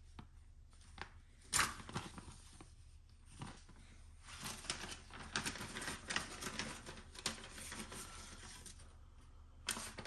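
Clear plastic parts bags crinkling and rustling as they are handled in gloved hands. There is a sharp crackle about a second and a half in, then a denser stretch of crinkling in the middle.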